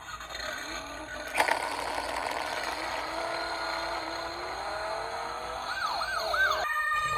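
Toy emergency-vehicle minicar's electronic siren sound effect playing from its small built-in speaker. There is a sharp click about a second and a half in. Near the end come a few quick rising-and-falling sweeps, and then it cuts off suddenly.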